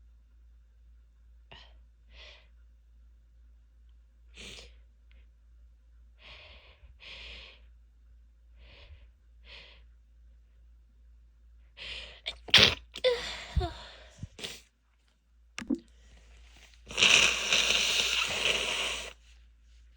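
A woman sniffing and drawing short breaths, then sneezing loudly in a quick cluster about twelve seconds in. Near the end comes a loud, noisy rush of breath lasting about two seconds.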